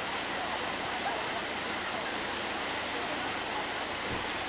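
Mountain stream rushing through rocky rapids: a steady, even rush of water, with faint voices over it.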